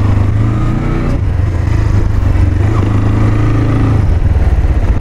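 The Regulmoto T-Leopard 300's single-cylinder 174MN 300 cc engine running as the motorcycle is ridden, its pitch rising and falling with the throttle. The engine note drops about four seconds in.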